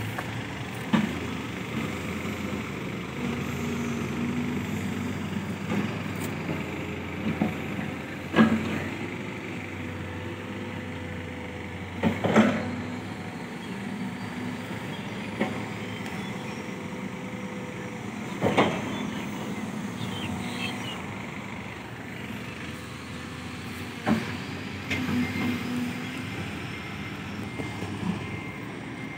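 Diesel engines of a six-wheel Hino Mega dump truck and a Cat 313D2 GC excavator running steadily at a digging site. About five sharp knocks break through the engine sound, a few seconds apart.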